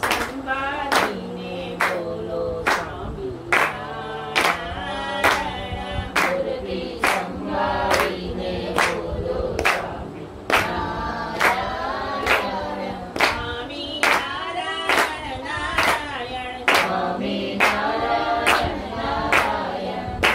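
A group of men, women and children singing a Gujarati devotional prayer together in unison, clapping their hands in a steady beat a little faster than once a second.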